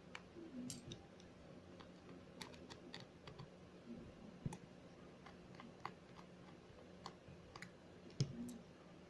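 Faint, scattered light clicks and taps of small repair tools and parts being handled on an opened iPhone, coming irregularly with no steady rhythm.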